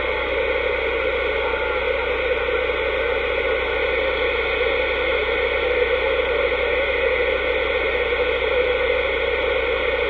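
Steady hiss of band noise from a Dynascan 10M66 transceiver's speaker, receiving on upper sideband with no readable station on the channel.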